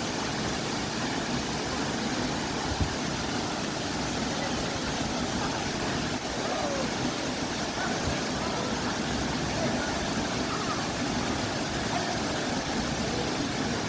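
Steady rushing noise with no change in level, with a few faint short chirps heard now and then.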